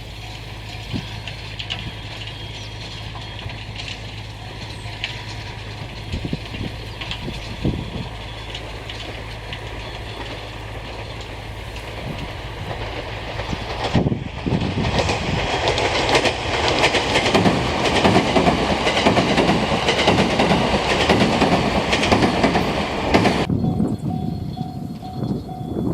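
'36 plus 3' tourist train, a JR Kyushu 787 series electric multiple unit, approaching and then passing close by with wheels clacking over the rail joints. The noise jumps up suddenly about halfway through and cuts off sharply near the end, leaving a steady tone.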